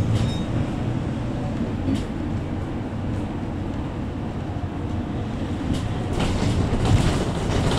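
Inside a Mercedes-Benz Sprinter 516 CDI diesel minibus on the move: a steady low rumble of engine and road noise, with a few knocks and rattles from the body.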